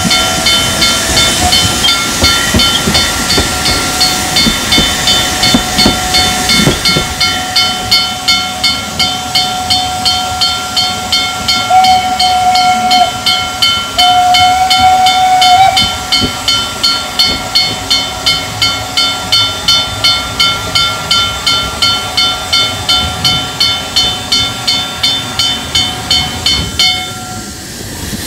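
Saxon IV K narrow-gauge steam locomotive running under steam: rapid exhaust chuffs about two a second over a steady hiss and a steady whistling tone of escaping steam, the tone swelling louder twice midway. The sound drops away shortly before the end.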